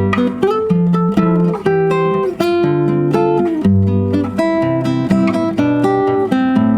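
Acoustic guitar played fingerstyle: a picked melody over a moving bass line, the notes plucked one after another with no strumming pauses.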